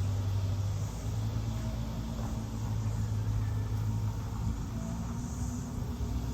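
School bus engine running steadily with a low drone.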